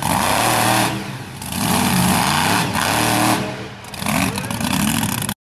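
Mega truck engine revving hard in surges of throttle, dropping back twice between pulls. The sound cuts off abruptly near the end.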